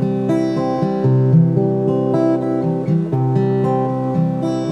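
Acoustic guitar strumming and picking chords in a slow instrumental break of a song.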